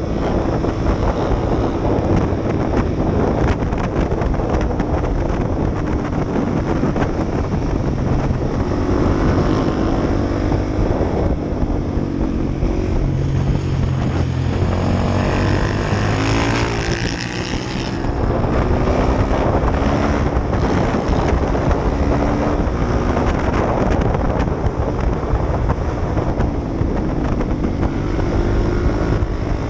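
Motorcycle engine running while riding, its pitch rising and falling with the throttle; the revs climb sharply about halfway through, then dip briefly before picking up again. Wind noise on the microphone runs underneath.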